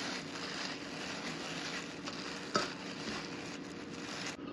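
Food sizzling in a frying pan: a steady hiss with a single sharp clink of a utensil about halfway through. The hiss thins out just before the end.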